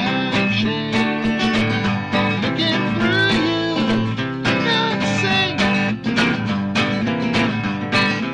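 Epiphone acoustic guitar being strummed steadily, chord after chord ringing into the next.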